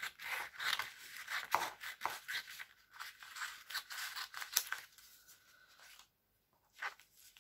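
Sheet of printed paper rustling and crackling as it is handled and pulled free: a busy run of short crisp crackles for about five seconds, then quiet apart from one last crackle near the end.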